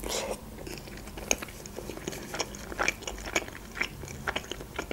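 A person chewing a mouthful of boiled khinkali dumpling dipped in sauce: soft, wet chewing with many small irregular mouth clicks and smacks.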